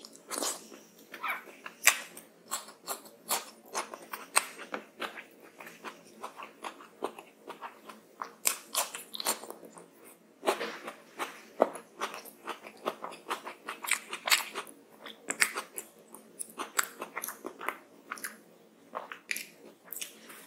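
Close-up chewing and mouth smacking of a person eating rice and curry by hand, with crunchy bites. Sharp little clicks and crackles follow each other quickly throughout.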